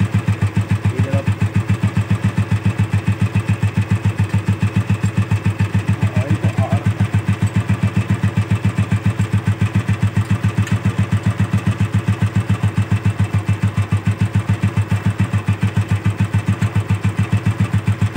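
Royal Enfield Bullet 350's single-cylinder four-stroke engine idling steadily with an even, rhythmic beat, run so that oil flow up to the rockers can be checked.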